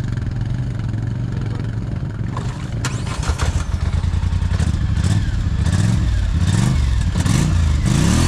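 ATV engine running, then revved up and down from about two seconds in, with repeated sharp clattering knocks: the rider takes this for the small gear teeth stripping in the transmission.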